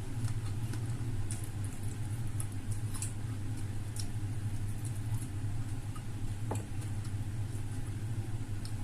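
A steady low hum, with faint, scattered clicks of chewing and mouth sounds from someone eating fried chicken.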